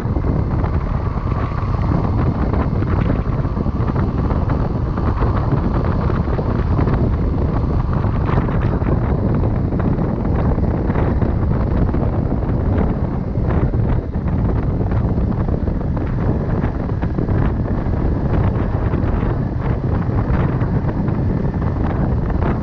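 Wind rushing steadily over a chest-mounted camera's microphone on a moving motorcycle, with the motorcycle's engine running under it.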